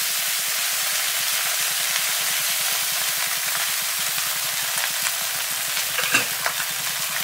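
Hot ghee-and-oil tempering with cumin and green chilli sizzling steadily in a kadai as cooked basmati rice is tipped in. A few faint clicks near the end.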